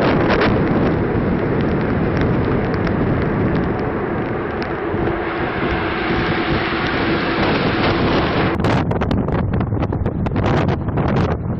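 Storm wind buffeting the microphone on a ship's deck in heavy seas, a dense, steady rush. About eight and a half seconds in it cuts to another recording where the wind noise comes in choppy gusts.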